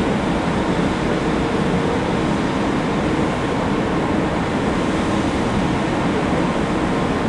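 Steady rumble of ship engines mixed with the rush of propeller-churned water as a harbour tug works alongside a container ship, with a faint steady hum underneath.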